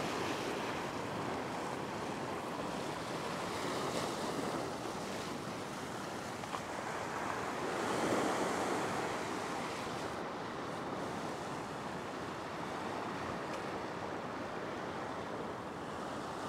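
Ocean surf washing and breaking against a rock shelf, a continuous rushing wash, with one wave surging louder about eight seconds in.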